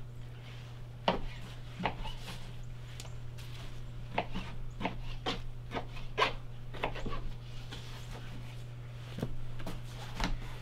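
Knife blade knocking against a plastic cutting board as venison is cut into cubes: a dozen or so sharp, irregularly spaced knocks.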